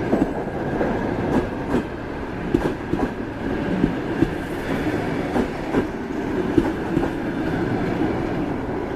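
Passenger coaches of a departing train rolling past, their wheels clicking and clattering irregularly over the rail joints above a steady rumble.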